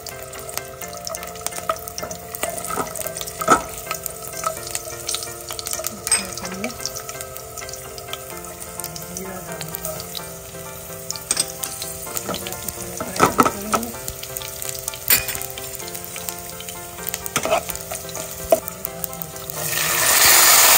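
Garlic cloves sizzling in hot oil in a nonstick pan, with a spoon clicking and scraping against the pan as cumin is stirred in. Near the end, dried red chillies go into the hot oil and the sizzle turns suddenly much louder.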